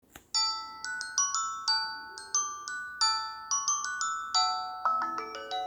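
A short bell-like melody of struck, ringing notes on a glockenspiel-type mallet instrument, ending in a quick rising run of notes.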